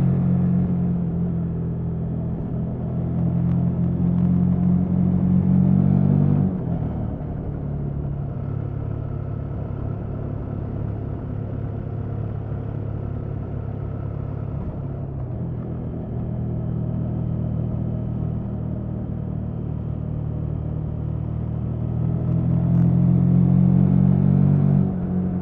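KTM 1290 Super Adventure S's 1301 cc V-twin engine running through its stock exhaust, steady and loud. It drops sharply about six seconds in, runs lower and steady for a long stretch, then builds again near the end and drops once more.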